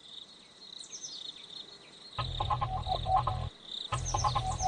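Faint high insect-like trill, then two runs of loud, rapid croaking calls with a deep rumble beneath, the first starting a little over two seconds in and the second near the end.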